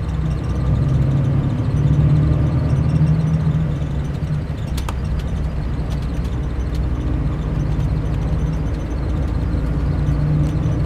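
Mercedes-Benz O500 RSD coach's diesel engine running steadily, a low hum that swells and eases slightly, with a single light click about five seconds in.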